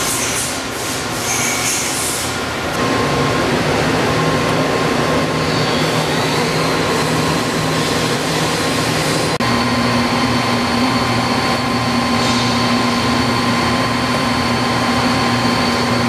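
Stelron rotary assembly dial machine running on its electric gear motor and cam-driven RD-3 index drive: a steady mechanical hum with several steady whining tones. The sound shifts abruptly about three seconds in and again about nine seconds in.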